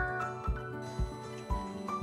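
Background music with a steady beat of about two beats a second under a light melody of short held notes.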